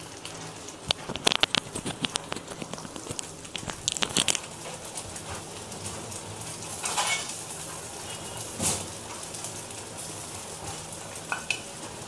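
Semolina and water for upma boiling in a steel pan on a gas burner, bubbling and popping with irregular crackles. The pops are thickest in the first few seconds, with a couple of louder pops later.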